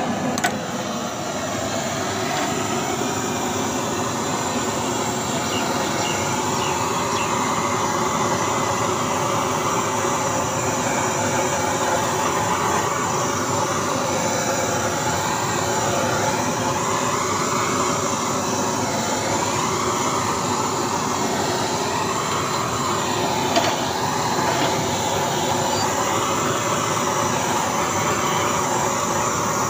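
Handheld butane gas-canister blowtorch burning with a loud, steady hiss. Its tone rises and falls slowly through the middle part, and it stops abruptly at the end.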